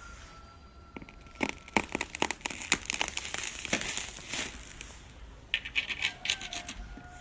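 Crinkling and crackling made of many sharp clicks in two runs: a long dense one starting about a second in, and a shorter one a little before the end.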